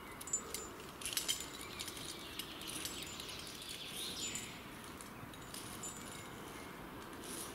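Faint outdoor ambience with a few short, high bird chirps and scattered light clicks and clinks, the loudest near the start and about a second in, and a brief rising swish around the middle.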